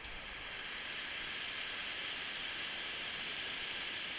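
Surf breaking and washing over a shingle beach: a steady hiss that swells over the first second and then holds.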